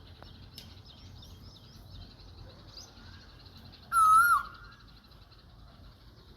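A cuckoo gives one loud, wavering whistled call about four seconds in, lasting about half a second. Faint chirping runs on behind it.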